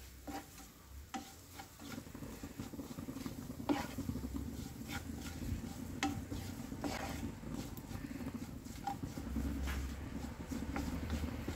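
Spatula scraping and stirring frying onions and spice powders around a nonstick frying pan, in irregular strokes with light ticks against the pan, the masala sizzling in the oil underneath.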